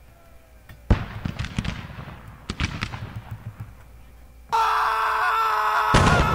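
Battle sound effect of gunfire: a sharp crack about a second in, then a crackle of scattered shots that echo and die away. About four and a half seconds in, a steady, louder din with a held high tone sets in, and more shots join it near the end.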